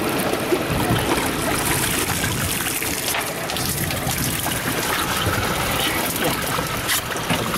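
Seawater splashing and trickling steadily as a hooked roosterfish thrashes beside the boat and is lifted aboard, water streaming off it.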